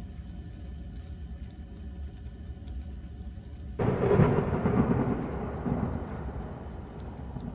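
Thunder in a snowstorm (thundersnow): a sudden crack about four seconds in that rolls on and fades away over the next few seconds, over a steady low background noise.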